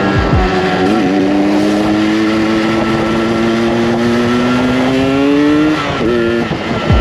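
Yamaha RX-King two-stroke single-cylinder engine running under throttle, tuned for the throaty 'ngorok' exhaust note. Its pitch steps up about a second in and climbs slowly, then falls away about a second before the end.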